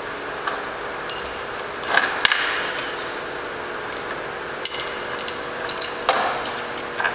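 Loose metal bolts, aluminium ones among them, clinking and ringing as they are gathered up by hand: a series of sharp metallic clinks, several of them ringing briefly. A steady hum sits underneath.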